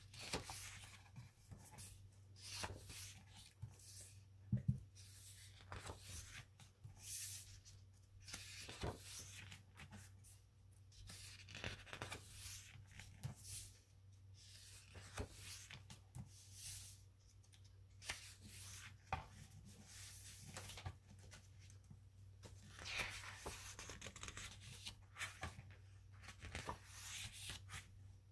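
Thick glossy photobook pages being turned and handled by hand: repeated short paper rustles and swishes, faint, over a low steady hum.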